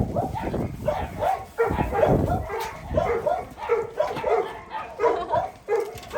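Dogs giving short, repeated barks and yelps, two or three a second.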